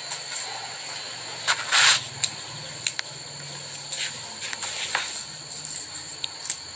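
Scattered short rubbing and brushing scuffs as cat hair is picked and brushed off clothing, the loudest about one and a half to two seconds in. Under them runs a steady, faint high-pitched whine.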